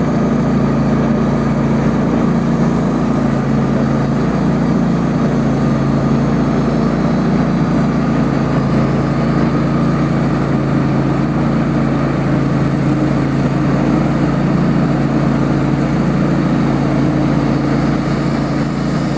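Engine of a Wood-Mizer LT15 portable sawmill running steadily at a constant speed.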